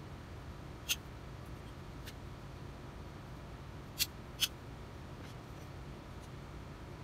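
Light metallic clicks from a metal compass plane being handled and turned over in the hands: a sharp click about a second in, a faint one a second later, and two close together about four seconds in.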